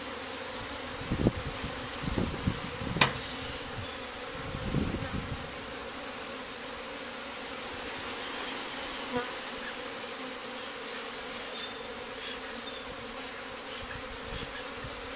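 Honeybees buzzing in a dense cloud around an open hive, a steady drone throughout. A few low knocks and thumps in the first few seconds, with one sharp click about three seconds in.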